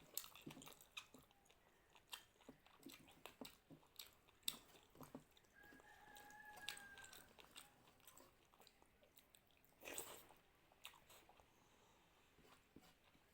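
Close-up chewing of a mouthful of rice and mutton curry: many short wet mouth clicks and smacks. About halfway through a faint held call sounds for a second or so.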